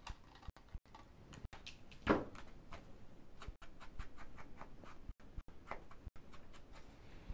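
Scissors snipping paper, then scattered light taps and rubs of an ink blending tool on card, with one louder knock about two seconds in. The audio cuts out briefly several times from a faulty microphone.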